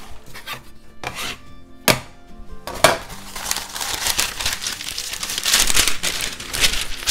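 Parchment paper being unrolled from its roll and handled, crinkling and rustling, with two sharp knocks about two and three seconds in; the rustling grows loudest in the second half as the sheet is pulled free and spread out.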